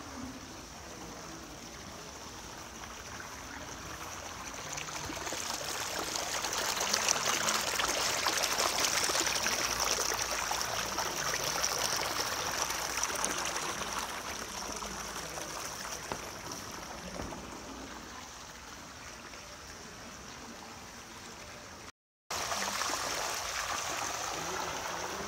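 Water rushing and splashing as a jet sprays into a basin of water, a steady hiss that swells over the first few seconds, peaks, then slowly eases. It cuts out for a split second about 22 seconds in and comes back louder.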